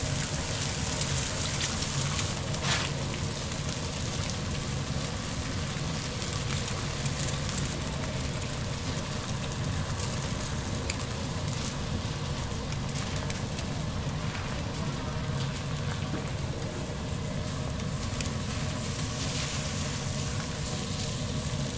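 Eggs frying on an oiled flat-top steel griddle: a steady sizzle.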